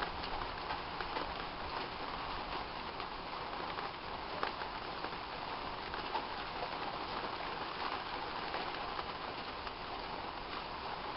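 Steady rain falling in a thunderstorm: an even hiss with scattered small ticks of individual drops.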